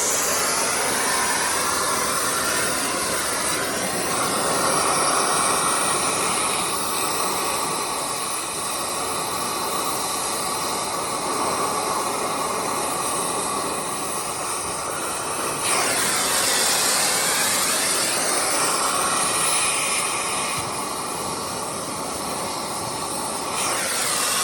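Oxy-acetylene cutting torch hissing steadily as it melts the nuts off bulldozer track bolts, its tone shifting several times.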